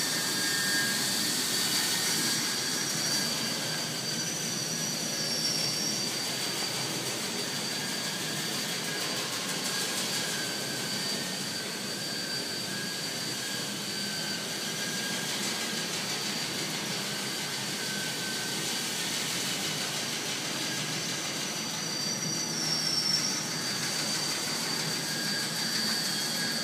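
CFS Optiflour flour-dusting machine running: a steady mechanical whirring hum with a constant high-pitched whine over it.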